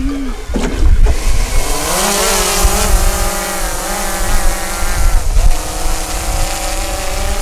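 Quadcopter drone's propellers whining as it leaves the hand and climbs away. The pitch rises about two seconds in, then holds with a slight waver.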